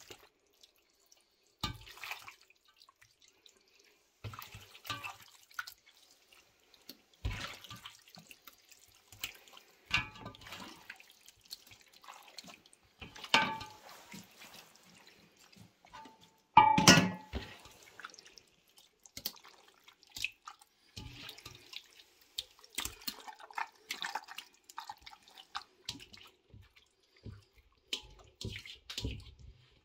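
Wet squelching and smacking of hands working a chopped, cooked pork mixture and pushing it into a large pork casing, in scattered short bursts with quiet gaps. One sound a little past halfway is clearly louder than the rest.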